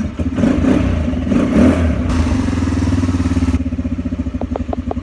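Coolster 150cc ATV's air-cooled engine idling with a steady pulse. For about three seconds a louder rushing noise lies over it, then cuts off suddenly, and a few light clicks follow near the end.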